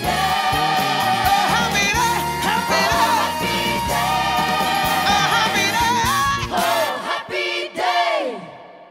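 Gospel choir singing over instrumental accompaniment to the close of a song. About two-thirds of the way in the low accompaniment drops out. A few short sung phrases follow, and the final note slides down and fades away near the end.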